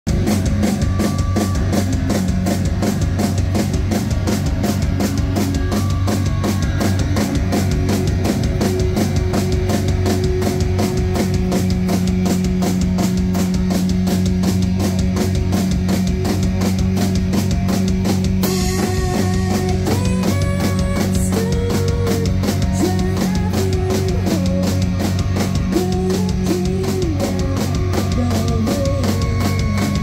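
Rock band playing live through a club PA: a steady driving drum beat under bass and electric guitars. About eighteen seconds in a cymbal crash hits and a higher melodic line with gliding notes comes in over the band.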